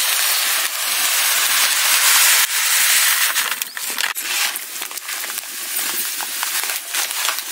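Granulated sugar pouring in a steady hissing stream from a plastic packet into a steel kadhai of water. The stream eases off about three and a half seconds in, and scattered crackles follow.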